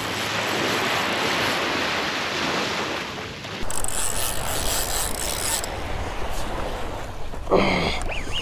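Surf washing on the shore with wind. About three and a half seconds in, wind rumbles on a chest-mounted camera's microphone while a large saltwater spinning reel is cranked with a rasping whir, fighting a hooked fish, with a brief louder sound near the end.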